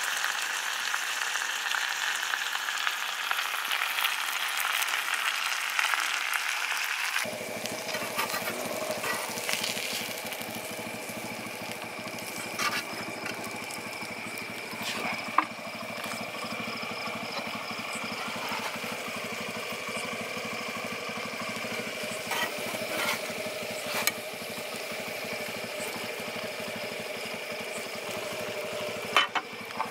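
Masala-coated fish pieces sizzling as they fry in oil on a large flat iron griddle. The sizzle is dense at first and changes abruptly about seven seconds in, becoming quieter with a steady low hum under it and occasional sharp clicks.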